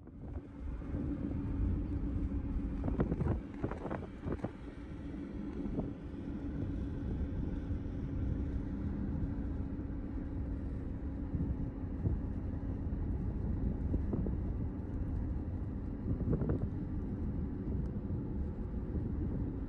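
Steady low rumble of a car in motion, heard from inside, with a faint steady drone. A few brief knocks or rattles come about three to four seconds in and again about sixteen seconds in.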